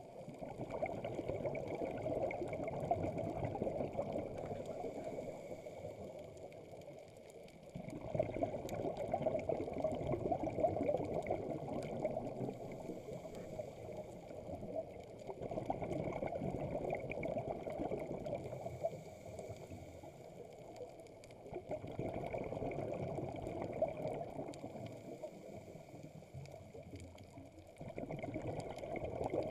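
Scuba diver breathing through a regulator underwater: long stretches of bubbling as the exhaled air escapes, about every seven seconds, with quieter pauses between for each inhalation.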